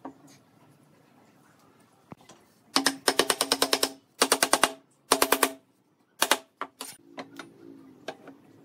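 Power tool run in three bursts of rapid, even clatter over a steady hum: the first lasts about a second, the next two about half a second each. A few single knocks follow near the end.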